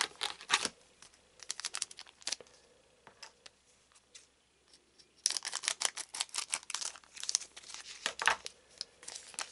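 A trading card booster pack's foil wrapper crinkling as it is handled and torn open: short runs of sharp crackling, nearly continuous over the last four seconds.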